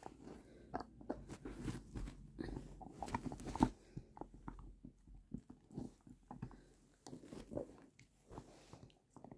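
Bernese mountain dog gnawing on a bone: a run of irregular crunches and clicks, busiest and loudest about two to four seconds in, then slower, scattered chews.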